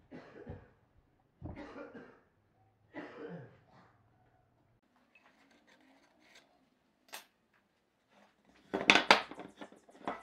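Solid pine workpieces handled on a wooden workbench: three short scraping knocks as they are shifted and set down, a single sharp click near the middle, then a loud rattling clatter of the wooden pieces knocking together about nine seconds in.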